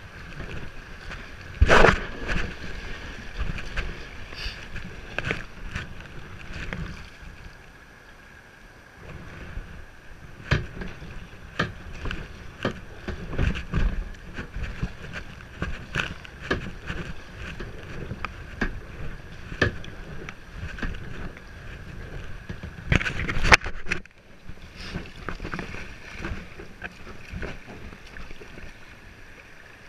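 Kayak paddling on a river: irregular paddle splashes and knocks over moving water. Two louder knocks come about two seconds in and again about three-quarters of the way through.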